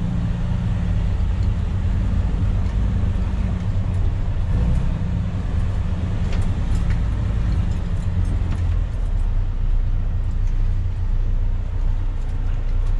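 Freightliner 122SD dump truck's diesel engine running with a steady low drone, heard from inside the cab as the truck moves across a dirt site, with a few faint light clicks.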